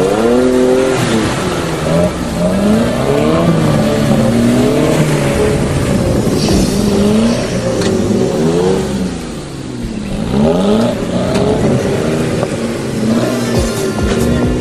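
Suzuki Vitara engine revving up and down over and over under load as the 4x4 works through rutted mud. The revs fall away briefly about two-thirds of the way through, then climb again.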